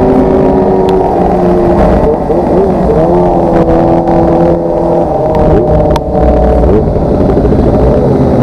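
Motorcycle engine running at steady revs under way. Its pitch dips and climbs back about two and a half seconds in and again around two-thirds of the way through.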